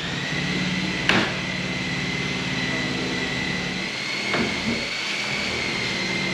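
Steady motor-driven machine running with a constant high whine, with a lower hum for the first few seconds. There is a sharp knock about a second in and another about four and a half seconds in.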